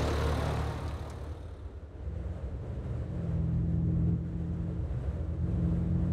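A vehicle passes close by, its engine and tyre noise swelling to a peak at the start and fading over the next couple of seconds. It is followed by a steady low engine drone as the vehicle drives on.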